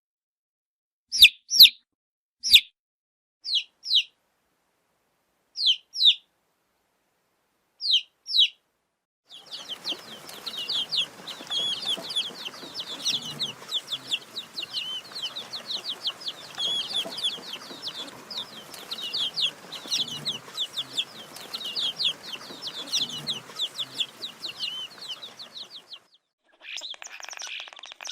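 Baby chicks peeping. First come separate high downward chirps, some in pairs, with silent gaps. From about nine seconds in, a whole group of chicks peeps without pause over a background hiss. Near the end the sound changes to another short stretch of peeping.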